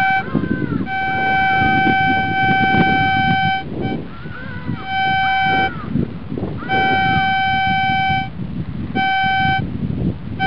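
Metal detector giving a steady high-pitched beep as its search coil is swept over the ground. The beep comes in five spells of about half a second to three seconds each, cutting in and out as the coil passes over metal buried in the soil.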